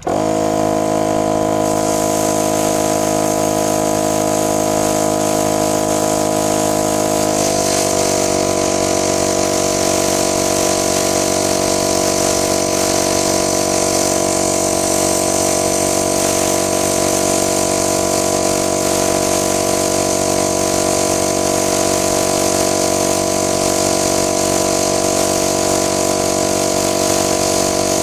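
Air compressor starting up and running steadily with a hiss of air over its motor hum. About seven seconds in, its pitch drops slightly and the hiss grows stronger.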